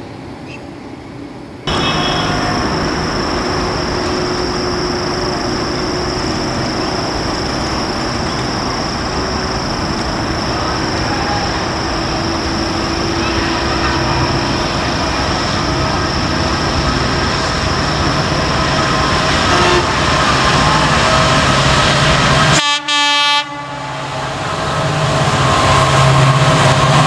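An EMD diesel locomotive hauling a passenger train along the track, with horn sounding. After a brief break about 23 seconds in, the locomotive's engine drone grows louder as it approaches.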